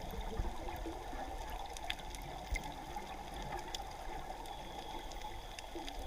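Underwater ambience recorded by a dive camera: a steady low rumble and hiss of water, with scattered faint clicks.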